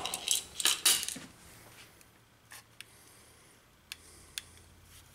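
Small parts being handled on a workbench: a short cluster of clicks and rustling in about the first second, then a few faint isolated clicks over low room noise.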